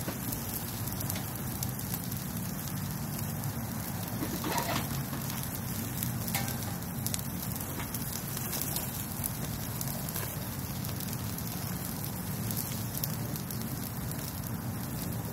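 Pinyon juniper wood fire crackling under steaks sizzling on a stainless-steel grill grate. A steady sizzling hiss is broken by scattered pops, the loudest about four and a half seconds in.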